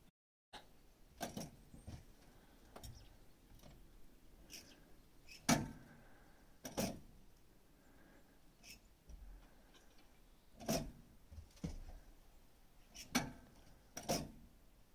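About a dozen irregular knocks and clunks, spaced a second or two apart, the loudest about five and a half seconds in, over a quiet background with no engine running.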